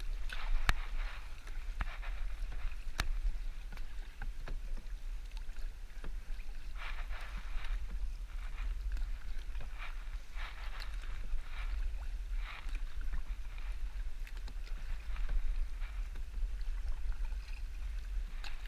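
Canoe paddle strokes in calm water: soft splashes and drips as the blade dips and pulls, repeating at an uneven pace of one every second or two. There are a couple of sharp knocks in the first few seconds.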